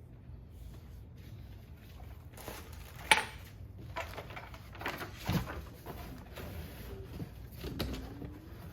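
Bike parts and packaging being handled during unboxing: scattered knocks and rustles, with one sharp click about three seconds in and a dull thump a couple of seconds later.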